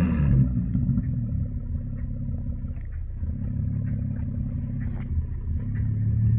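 Nissan 370Z Nismo's 3.7-litre V6 idling steadily, heard from behind at its twin exhaust tips.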